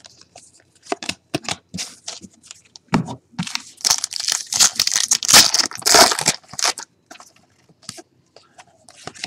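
Trading-card pack wrappers being torn open and crinkled, with a loud flurry of tearing and rustling from about three to seven seconds in, between lighter clicks and rustles of handled cards.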